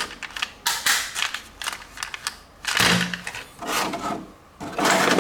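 Plastic packaging and toy parts being handled: an irregular run of crackling rustles and sharp clicks, with short pauses between them.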